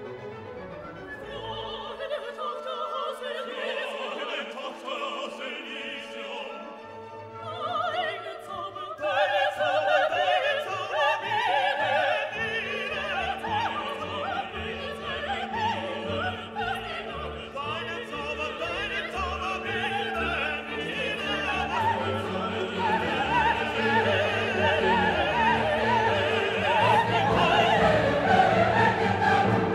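Background classical music in an operatic style: singing over an orchestra, growing louder about nine seconds in.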